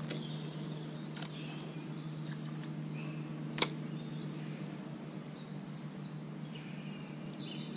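Outdoor ambience: small birds give short high chirps over a steady low background hum. One sharp click stands out about three and a half seconds in.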